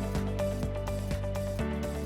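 Background music with a steady beat under held chords, the chord changing about one and a half seconds in.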